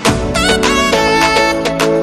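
Instrumental background music; a deep bass note comes in at the very start.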